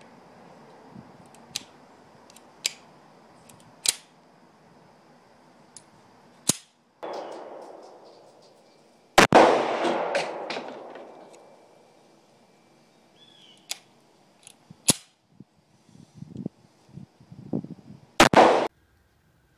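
Two shots from an SCCY CPX-2 9mm pistol, about nine seconds apart, the first with a long echoing tail. Between them come scattered sharp metallic clicks from the pistol being worked. The gun is having constant failures, misfires and misfeeds that other owners put down to steel-cased ammunition.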